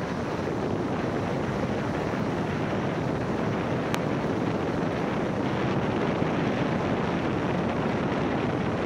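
Steady wind and road noise from a car driving over wet cobblestones, picked up by a camera microphone mounted on the car's roof. A single faint tick about four seconds in.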